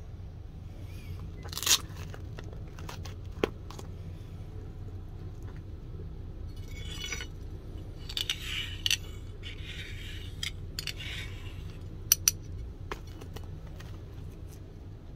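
Steel clinking and scraping as a forged leaf-spring cleaver blade is handled on an anvil: sharp clinks near the start and again near the end, and a few seconds of scraping along the blade in the middle, over a steady low hum.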